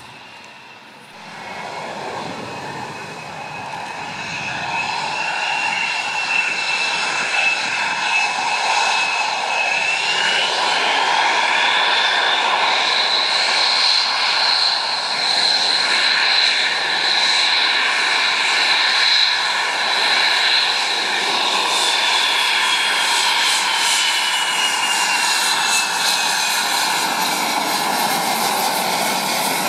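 Saab JAS 39 Gripen's single jet engine whining as the fighter taxis on the road. The sound swells from about a second in over a steady hiss, and a high whistle rises in pitch around ten seconds in, holds, then slides down again near the end as the jet passes.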